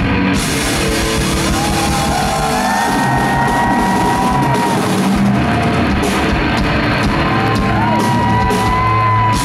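Loud live rock music in a concert hall: electric guitar and a drum kit played hard. Two long held high notes ring over the top, one starting about a second and a half in and another near the end.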